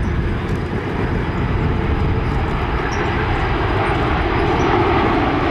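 Turbofan engines of a large jet airliner flying past, a steady deep rumble that grows gradually louder.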